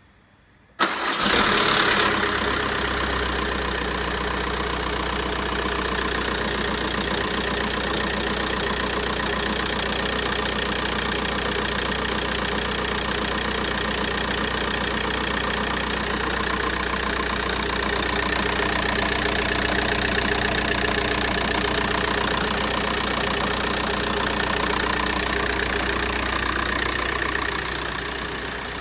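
Volkswagen Golf IV's 1.9 TDI (ASZ) four-cylinder turbodiesel starting from cold. It catches about a second in, runs louder for a moment, then settles into a steady idle.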